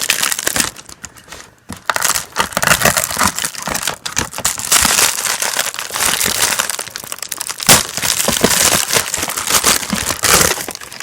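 Packaging crinkling and rustling as it is handled and pulled open, in bursts, with a brief lull about a second in and a sharp snap-like click near the end.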